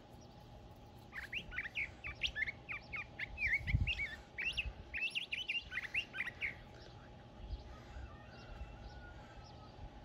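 A small songbird singing a rapid string of short, varied high chirping notes for about five and a half seconds, then only a few faint notes. There is a brief low bump about four seconds in.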